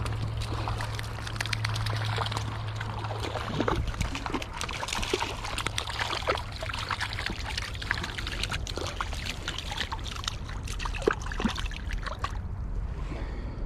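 River water trickling and gurgling, with many small irregular plinks and splashes.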